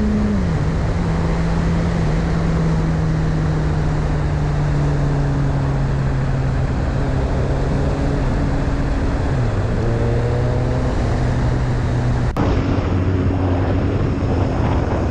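Motorcycle engine running under way with heavy wind rush on the helmet-camera microphone; its note drops about half a second in, then sinks slowly as the bike eases off. About twelve seconds in it cuts abruptly to a BMW sport bike's engine running at a lower, steady note.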